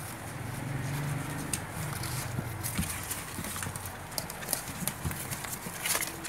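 Newborn puppies squirming in a cardboard box, their paws scratching and tapping on the cardboard in scattered light clicks and scrapes, as the mother dog shifts about among them.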